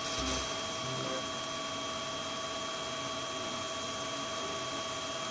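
TIG welding arc from a Jasic NovaArc 200K inverter welder, burning steadily at a raised current, with an even hiss and a few thin steady whining tones.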